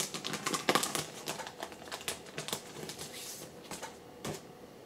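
Clear plastic comic bag crinkling and crackling as a comic book is slid out of it: a quick run of sharp rustles and clicks that thins out toward the end.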